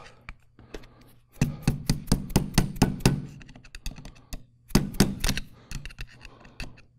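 Mallet tapping a steel rod set in a slot of a threaded bearing end cover, driving the cover tighter. The taps come in a quick run of about five a second, then a few more near the end, as the cover is tightened to take out all bearing clearance.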